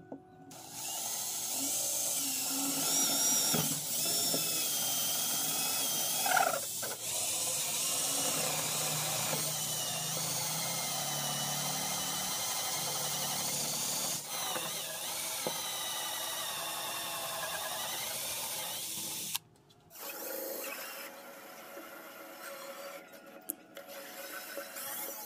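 Makita cordless drill running steadily as it bores screw holes through a wooden table-saw insert plate, its motor whining high. It cuts off suddenly a few seconds before the end, then runs again more quietly.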